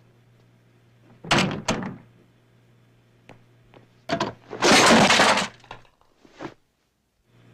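Foley effects performed with props: two sharp hits about a second in, then a loud crash of breaking glass lasting about a second near the middle, and a last small knock.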